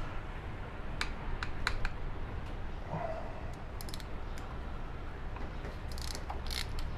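Scattered sharp metallic clicks and taps from a motorcycle chain riveting tool being worked on a master-link pin to mushroom its head.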